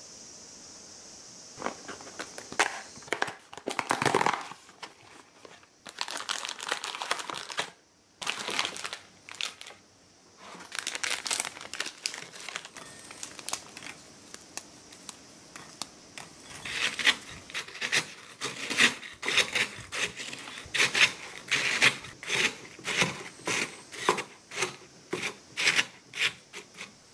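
Crisp Moonlight butter cookies snapped and crumbled by hand into a bowl, with dry cracking and crunching. In the last third, the end of a wooden rolling pin pounds them into crumbs: a quick run of sharp crunching strikes, about two a second.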